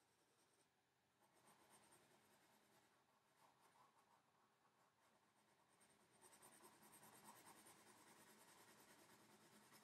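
Faint scratching of a soft pencil on paper as it draws and shades, growing a little louder about six seconds in.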